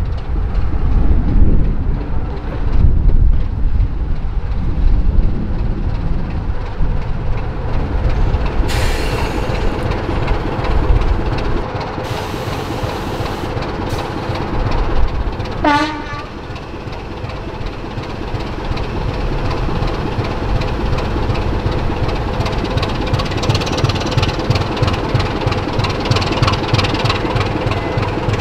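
A Class 25 diesel locomotive's Sulzer six-cylinder engine running as the locomotive shunts, its fast, even throb growing stronger in the last third. About halfway through there are brief hisses and a short falling tone.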